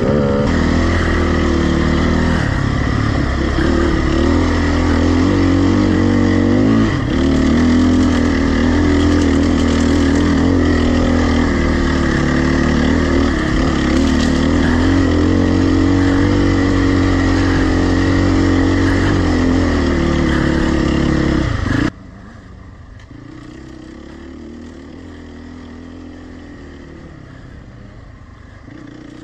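Dirt bike engine running as the bike rides along a trail, its speed rising and falling a little. About two-thirds of the way through, the sound drops suddenly to a much quieter engine note.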